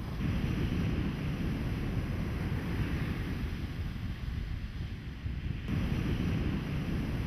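Wind rumbling on the microphone over the steady wash of surf on a beach. It grows louder just after the start, eases off, and grows louder again near the end.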